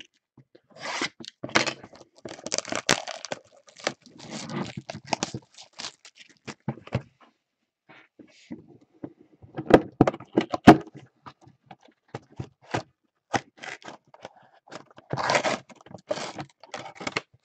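A retail box of trading cards being unwrapped and opened by hand: plastic wrap and cardboard crinkling, tearing and scraping in irregular bursts, with two sharp snaps about ten seconds in.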